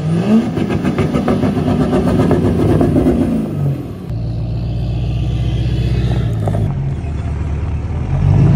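GMC Sierra Denali HD's 6.6-litre L5P Duramax V8 turbodiesel revving up as the truck accelerates, its note rising and holding before dropping away about three and a half seconds in. Then the diesel runs on at a lower, steadier note.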